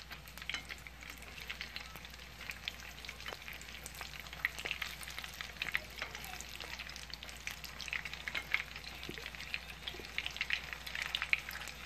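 Frozen lumpia (Filipino spring rolls) frying in shallow oil in a skillet: the oil sizzles with a continuous crackle of small pops as the wrappers brown.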